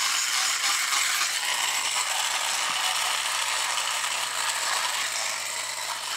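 Vintage tin walking robot's crank-driven flywheel gear train whirring with a ratcheting clatter. It is cranked up to speed, then runs on the flywheel, with a faint rising tone about a second in.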